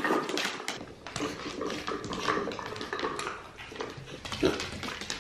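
Clear plastic treat-dispenser ball knocking and clicking irregularly on a hardwood floor as a mini pig pushes it with its snout, with the pig's grunts in between.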